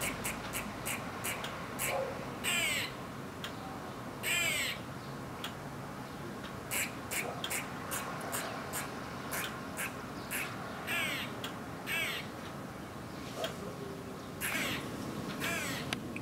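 Eastern grey squirrel giving alarm calls: a run of short, sharp kuks, broken by about six longer, drawn-out quaa calls.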